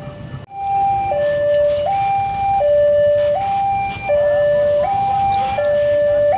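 Railway level-crossing warning alarm from the crossing's horn loudspeaker: a loud electronic two-tone hi-lo signal, each note held about three-quarters of a second, warning that a train is passing. It starts abruptly about half a second in.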